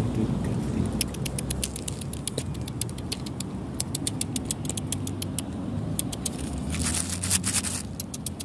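Roadside noise: a steady low rumble of road traffic, with rapid sharp clicks running through it, thickest about seven seconds in.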